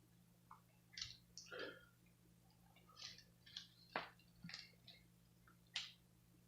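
Near silence over a low steady hum, broken by about a dozen faint, short clicks and smacks scattered through the few seconds.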